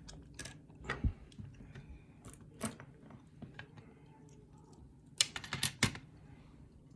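Scattered light metal clicks and taps from handling a just-picked challenge lock and its picking tools, with three sharper clicks in quick succession about five seconds in.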